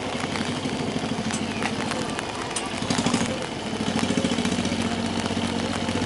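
A small engine idling steadily with a fast, even pulsing, growing a little louder about three seconds in.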